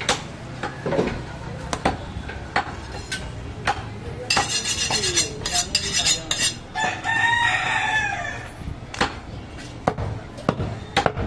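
A rooster crows once, a long, arching call about seven seconds in, after a couple of seconds of harsh, noisy sound. Scattered sharp knocks of a cleaver and meat on a wooden chopping block come before and after.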